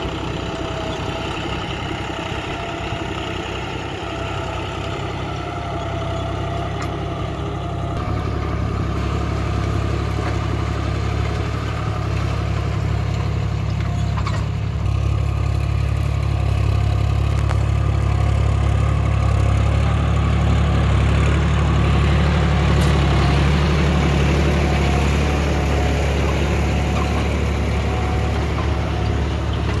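John Deere 5310 tractor's three-cylinder diesel engine running steadily under load as it pulls a reversible disc plough through dry soil. It grows louder about a quarter of the way in and again around the middle.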